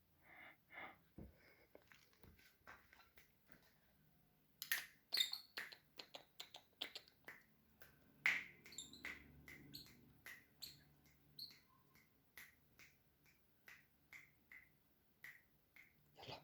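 Pet bird giving short, sharp chirps in a quick, irregular series, dozens of them, loudest just under five seconds in and again a little after eight seconds.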